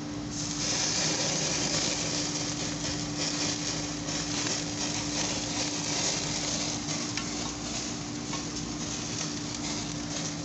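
Pork ribs sizzling and crackling on a hot gas grill as basting sauce is spooned over them and drips onto the grates and flames. The sizzle swells about half a second in, over a low steady hum.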